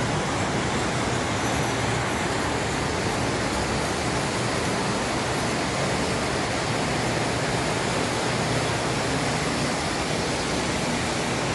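Standard gauge tinplate toy trains running on metal track, a steady even rolling noise.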